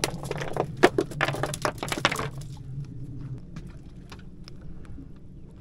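Clicker on an old fishing reel, which cannot be switched off, ticking rapidly as the spool turns while a fish is reeled in; it stops about two seconds in, followed by a few scattered light clicks.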